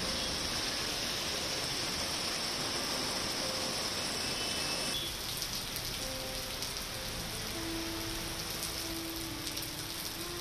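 Steady rain falling and splashing on surfaces. About five seconds in the sound changes abruptly, turning slightly quieter, with fine ticks of individual drops.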